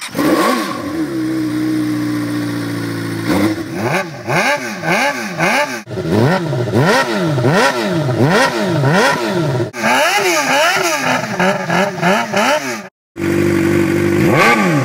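Suzuki GSX-R600's inline-four engine running loud through a stubby aftermarket silencer: it idles with its pitch slowly settling for about three seconds, then is blipped repeatedly, about two quick revs a second. Near the end it cuts out briefly, then idles and revs again.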